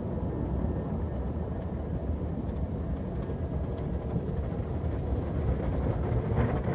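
Automatic car wash brushes spinning and scrubbing across the car with water spraying, heard from inside the car as a steady low rumble. Near the end a few louder slaps come through as the brushes hit the glass.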